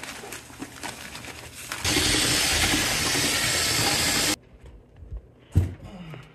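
Dry mortar mix pouring out of a paper bag into a plastic bucket, then a cordless drill with a mixing paddle running steadily in the bucket for about two and a half seconds before cutting off suddenly. A single thump comes near the end.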